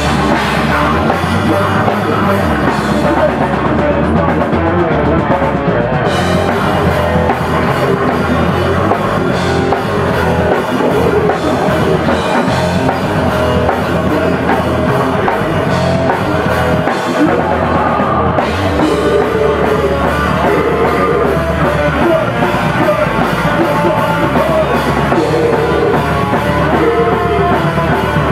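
Live rock band playing loud and without a break: a pounding drum kit under amplified electric guitars.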